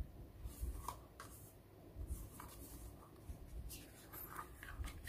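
Quiet rustling and light taps of a spiral-bound desk calendar's card pages being handled and turned.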